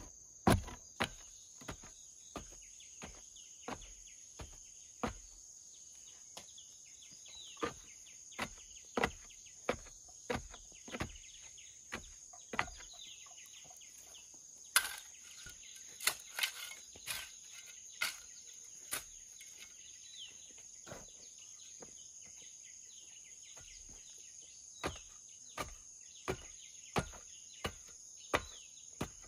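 Dull thuds of a wooden pole tamping loose soil around a wooden post, one every half second to second. They are interrupted midway by a run of sharper machete strikes on wood. A steady high insect drone runs underneath.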